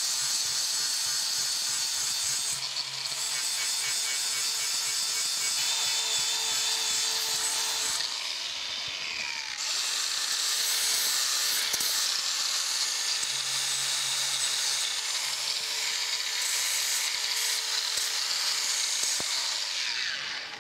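Electric angle grinder with an abrasive disc grinding down fresh welds on a steel bracket: a loud, hissing grind whose pitch and load shift a few times as the disc is pressed on and eased off. It cuts off just at the end.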